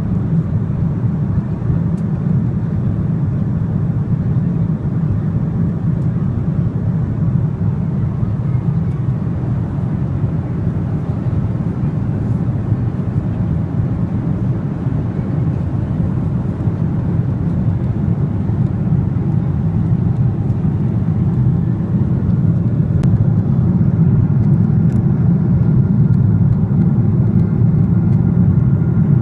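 Airliner cabin noise: a steady, loud low rumble of engines and airflow heard from a passenger seat, growing slightly louder about two-thirds of the way through.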